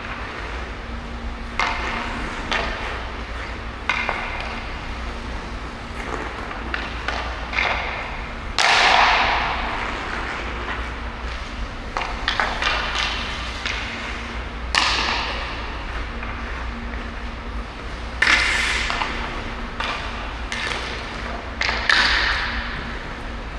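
Hockey skates scraping the ice in four hard stops or cuts, each a sharp hiss that fades over about a second, between short clicks of a stick on a puck. A steady low rink hum runs underneath.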